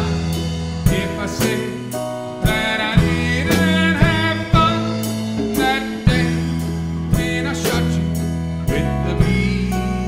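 Country-gospel band music with a steady drum-kit beat, acoustic guitar and bass, under a wavering melodic lead line.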